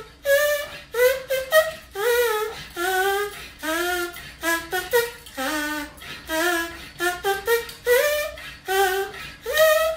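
A tune hummed in short sliding notes, about one or two a second, in time with the strokes of a hand floor bike pump. A short hiss marks the start of each note.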